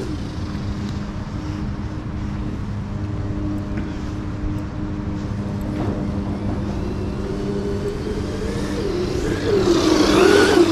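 Electric motor of an upgraded 3S Arrma Granite RC monster truck whining steadily as it drives over beach sand. Near the end a louder whine rises and falls as the truck accelerates and lets off.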